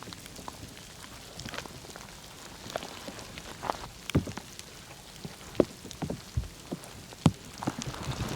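Raindrops pattering in irregular light taps, with a few louder knocks.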